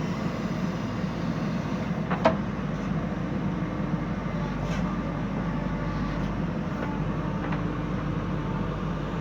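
JCB 3DX backhoe loader's diesel engine running steadily while it works, with a sharp metal clank about two seconds in and a couple of fainter knocks later.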